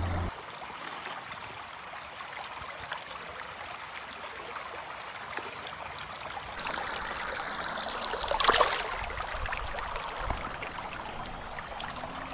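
Shallow river water running steadily over stones. A brief louder splash in the water comes about two-thirds of the way through.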